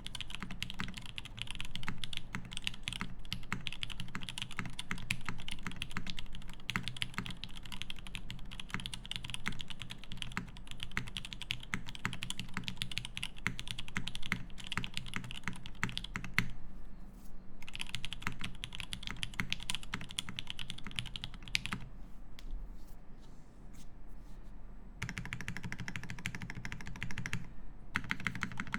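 Continuous fast typing on a TGR Jane V2 CE mechanical keyboard with lubed SP-Star Meteor White switches, a carbon fibre plate and GMK keycaps: a dense stream of keystroke clacks. It stops for about a second a little past halfway, then thins to scattered keystrokes for a few seconds before running fast again near the end.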